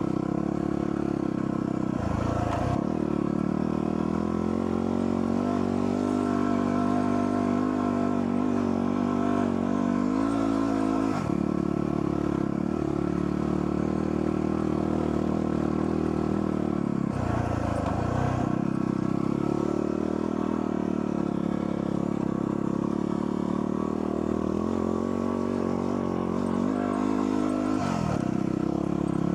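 Dual sport motorcycle engine running under way, its note climbing steadily and then dropping off sharply four times as the throttle is rolled off or a gear is changed.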